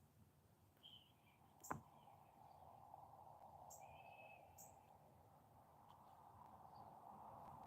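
Near silence: faint outdoor background noise with a couple of soft, short bird chirps and a few light clicks.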